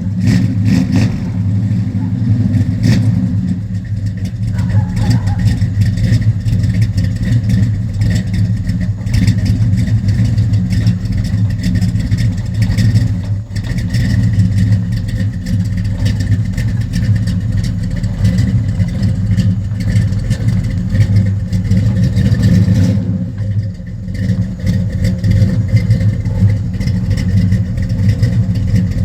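A 1970 Chevrolet Monte Carlo's cammed big-block V8 idling, with a throaty, choppy rumble and brief dips in level about 4 and 23 seconds in.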